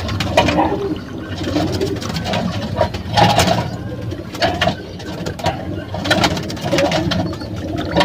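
Racing pigeons cooing in the loft, with a thin stream of water running into a stainless steel pot.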